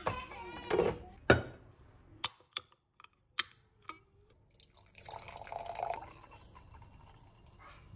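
A can of sparkling spritz drink taken from the fridge and opened, with several sharp clicks and knocks of the can and glass. About five seconds in it is poured into a wine glass, a hissing, fizzing pour that trails off.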